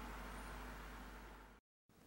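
Faint steady room tone with a low hum, fading and then dropping to dead silence for a moment near the end.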